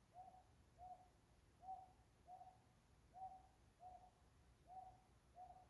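A cuckoo, which the Korean title calls a mountain cuckoo (산뻐꾸기), calling in the night. It gives a low two-note hoot, repeated four times at an even pace.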